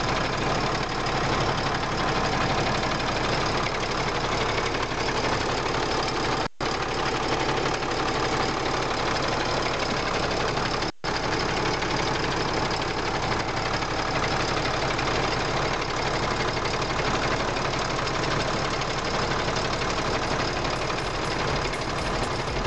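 Ford Cargo 2422 truck's diesel engine idling steadily, heard close to the engine. The sound drops out for an instant twice.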